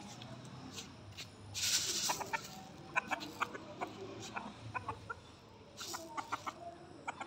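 Chickens clucking, with many short sharp clicks and calls and two brief rustling bursts, one about a second and a half in and one near six seconds.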